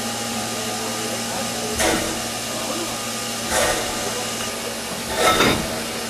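Steam hissing steadily from the Henschel-built steam locomotive HC 5 standing at rest, with a sharper puff of steam about every two seconds, three in all, the last the loudest.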